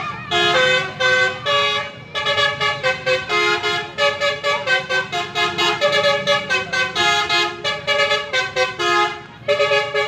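Tour bus's 'telolet basuri' multi-tone horn playing a fast tune: a rapid run of short notes jumping in pitch, several a second, with brief pauses about two seconds in and near the end.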